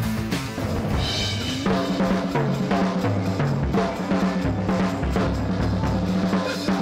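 Rock drumming on a full drum kit, with kick, snare and cymbal hits over sustained low bass notes. About one and a half seconds in, guitar-led music gives way to the drumming.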